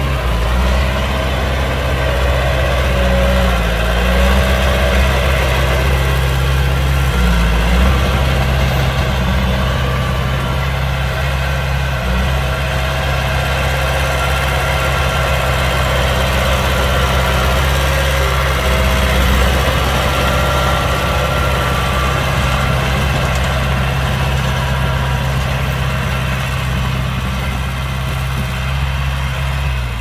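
Heavy diesel engine of a construction vehicle idling steadily, a low even engine note that barely changes in pitch.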